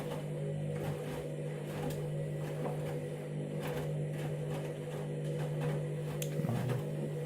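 Candy washing machine running: a steady, even-pitched mechanical hum with faint scattered ticks.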